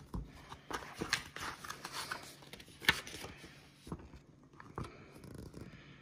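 Pages of a paper catalogue being turned and handled: soft rustling with scattered light clicks, and one sharper click about three seconds in.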